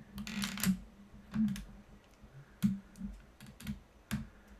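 Camera and tripod handling noise as the camera is adjusted for a close-up: a run of irregular clicks and light knocks, a quick cluster at the start and then single clicks every half second or so.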